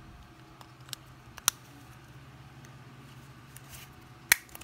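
Sharp plastic clicks from handling an A1 smartwatch's back cover and pressing it shut. There are a few small clicks, a loud one about a second and a half in, and the loudest snap near the end.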